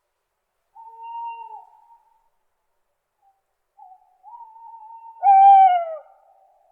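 Owl hooting: a hoot about a second in that dips at its end, then a longer hoot from about four seconds in, with a louder, falling hoot over it near the end.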